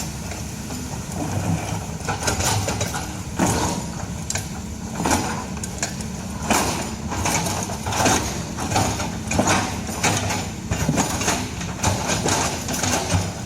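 Excavator's diesel engine running steadily under irregular, repeated clanks and knocks.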